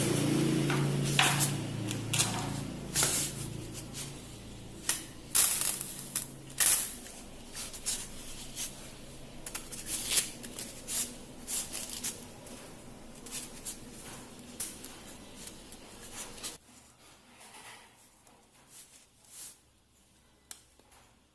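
A motor hum dies away over the first few seconds. It is followed by irregular clicks and taps of small hard objects being handled, with the background cutting off abruptly near the end.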